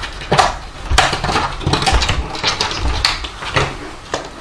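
A cat squeezing through a pet door flap: a run of irregular knocks and clatters as the flap and the cat's body bang against the plastic frame.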